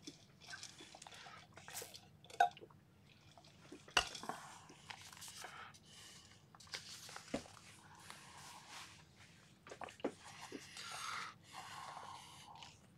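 Irregular rustling and small clattering of objects being handled close to the microphone, with a sharp knock about two and a half seconds in and a louder one at about four seconds.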